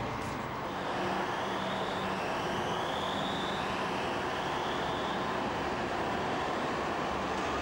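Alstom RegioCitadis tram-train pulling away and gathering speed: steady running noise that builds during the first second, with a thin whine rising in pitch as it accelerates.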